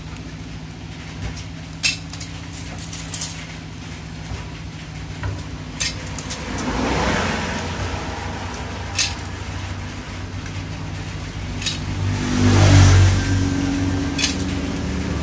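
Sparse sharp clicks and taps of thin metal emblem badges being bent and handled by hand, about five in all. Under them runs a steady low hum, and engine noise swells and fades twice, loudest near the end.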